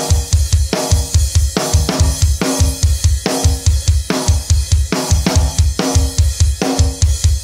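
Drum kit played in a driving metal groove: rapid, even double bass drum strokes under constant cymbal wash. A ringing drum accent lands a little under once a second.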